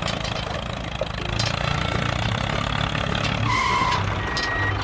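Tractor engine running steadily with a low hum. Near the end a reversing alarm starts, two short beeps at different pitches.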